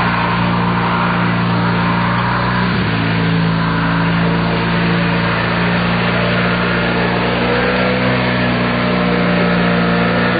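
Riding lawn tractor's engine running steadily as it is driven, its pitch shifting slightly about three seconds in.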